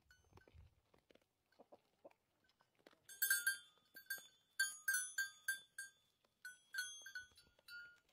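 Metal collar bells on feeding deer clanking: faint scattered clicks at first, then from about three seconds in an irregular run of ringing clanks as the deer move their heads.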